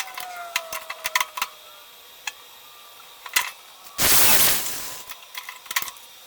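Scattered metallic clicks and clanks of hand tools and parts being handled, with a short, loud hissing burst about four seconds in.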